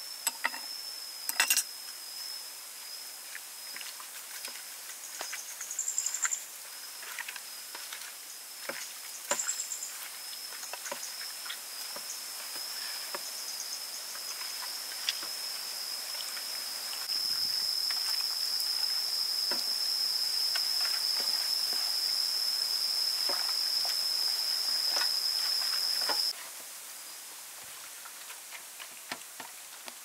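Hands kneading seasoned raw pig intestines in a metal tray, making scattered small clicks, over a steady high-pitched insect drone. The drone grows louder about seventeen seconds in and cuts off suddenly about twenty-six seconds in.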